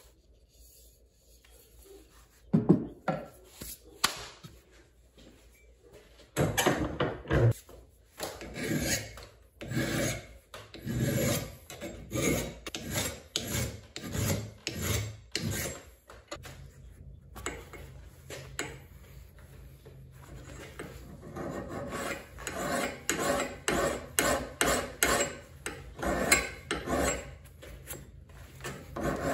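Hand file pushed in repeated rasping strokes across the edge of a steel axe blade clamped in a vise, reprofiling the bevel. The strokes begin a couple of seconds in and keep a steady rhythm of about one and a half to two a second, with a short pause around the middle.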